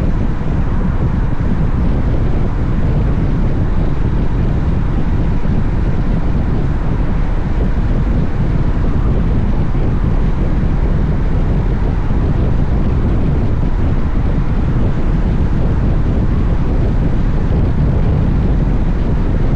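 Steady rush of wind on the action camera's microphone while riding a Honda X-ADV motorcycle at road speed, with the motorcycle and road noise underneath.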